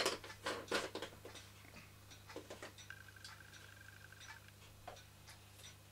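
Light, irregular metallic clicks and ticks from the small tinplate Märklin toy steam engine being handled: several in quick succession in the first second, then sparser.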